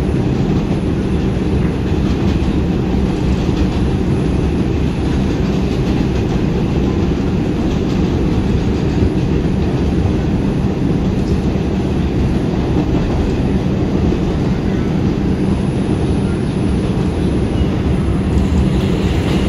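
A New York City subway 2 train car running along an elevated track, heard from inside the car: a steady, heavy rumble of wheels on rails and car noise.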